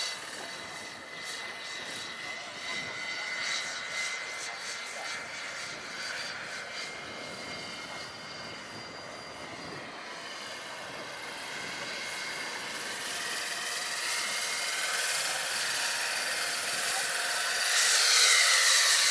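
Roban 800-size Eurocopter EC-135 scale model electric helicopter in flight: the whine of its electric motor over the swish of its rotors, shifting in pitch as it manoeuvres. It grows louder about eighteen seconds in as it makes a low pass.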